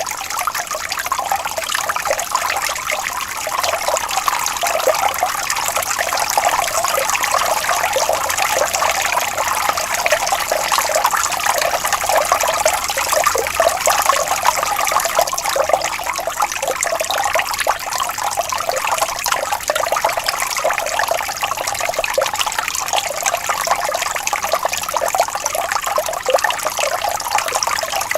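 Water flowing and trickling steadily in a gentle stream, a continuous babbling with fine splashy detail and no pauses.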